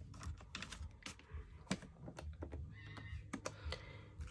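Buttons of a rhinestone-covered desk calculator being pressed: a quick, irregular series of light clicks as a cash total is keyed in.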